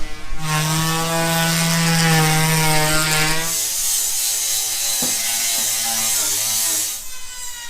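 Electric power sander running against a fibreglass hull: a steady motor hum over gritty hiss, its pitch dropping to a lower hum about halfway through.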